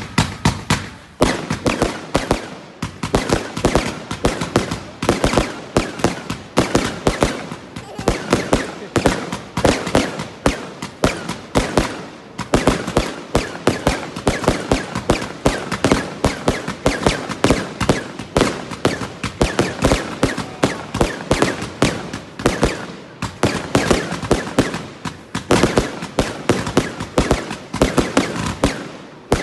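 Fireworks going off in a rapid, continuous barrage of sharp bangs, several a second, with a couple of short lulls and a brief stop near the end.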